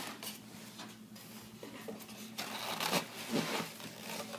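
Styrofoam packing and cardboard rubbing and scraping as a boxed stand mixer is slid out of its box, with a few soft knocks.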